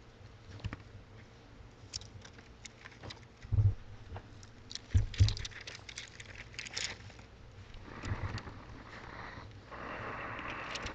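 Thin Bible pages being leafed through, with scattered paper crackles and rustles and a few dull thumps about three and a half and five seconds in. Near the end there is a steadier rustle.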